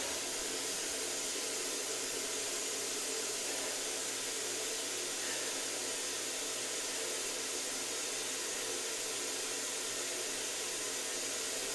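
A steady, even hiss with no other sound.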